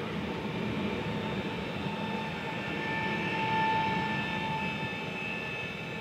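Koleje Wielkopolskie 48WE electric multiple unit passing over a level crossing: a steady rumble of wheels on the rails, with a steady electric whine strongest in the middle, easing slightly as the end of the train goes by.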